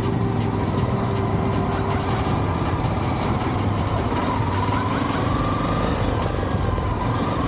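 Motorcycle engine running steadily while riding, under a constant rush of noise, with a faint tone that rises and falls slightly around the middle.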